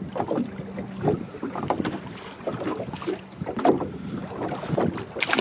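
Wind buffeting an unshielded camera microphone in uneven gusts, with rumbling and thudding: no wind shield was fitted.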